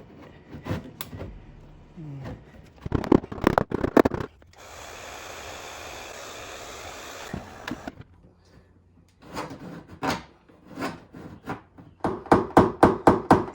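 Knocks and clicks of metal dent-repair tools working against a car door panel, a steady hiss for about three seconds in the middle, then fast even tapping about five times a second near the end.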